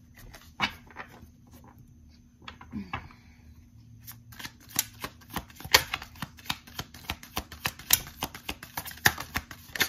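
A deck of tarot cards being shuffled by hand: a few scattered card clicks at first, then from about four seconds in a rapid run of crisp clicks as the cards are riffled through.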